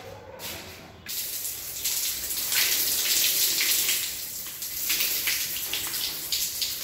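Water from a wall tap pouring and splashing onto a bare leg and a concrete shower floor, starting about a second in.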